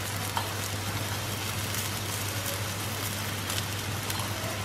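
Sliced onions frying in oil in a stainless steel pan, a steady sizzle with a few faint pops. A low steady hum runs underneath.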